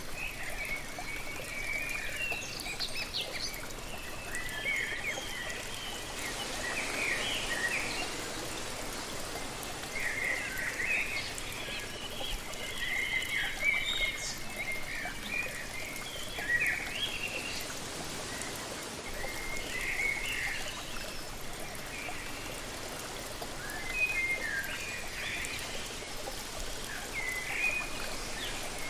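Steady rush of a waterfall, with birds chirping in short bursts every few seconds over it.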